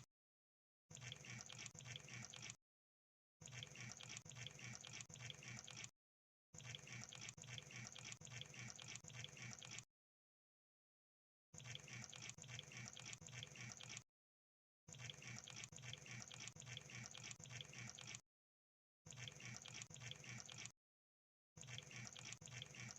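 Crab sound effect: a faint crackle of many rapid small clicks, played in stretches of two to four seconds, each broken off by a gap of dead silence.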